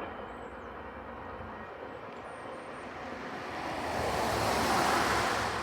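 A passing vehicle over a steady low rumble: its noise swells from about three and a half seconds in, is loudest near the end, then begins to fade.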